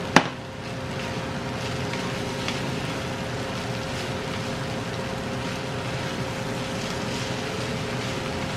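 Chow mein noodles, vegetables and shrimp sizzling in a frying pan as they are stir-fried, a steady hiss with a faint hum under it. A single sharp knock comes just at the start.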